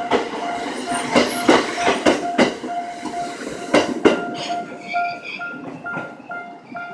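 Ginza Line train rolling over a level crossing, its wheels clacking over the rail joints, while the crossing's warning bell rings steadily at about two to three strokes a second. About four seconds in the clacking dies away and high squealing tones come in under the bell.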